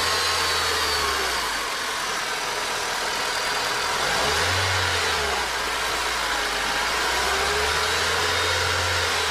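2004 Honda Civic idling in gear with the clutch engaged, its manual transmission giving a steady grinding over the engine's hum: the sign of a worn input shaft bearing.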